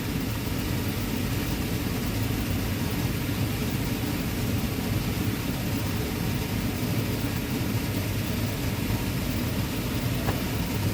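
A steady low mechanical rumble that holds unchanged throughout.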